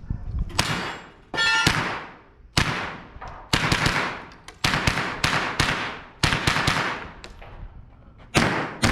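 A string of about fifteen gunshots, fired one to three a second at uneven spacing, each with a short ringing tail, typical of a stage run at a shooting match.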